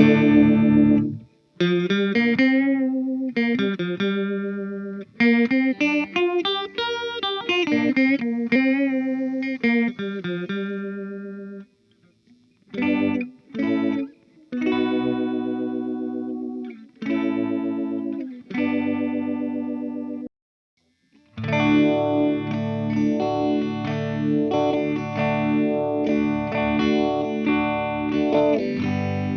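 Electric guitar (Epiphone Les Paul Special) through a Joyo Vintage Phase phaser set to its fastest speed, into a Fender Twin Reverb Tonemaster amp recorded from its direct out, playing single-note melodic phrases. About twenty seconds in, after a short pause, it switches to strummed chords.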